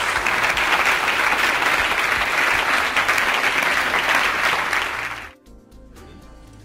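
Audience applauding, stopping abruptly about five seconds in, after which soft background music carries on.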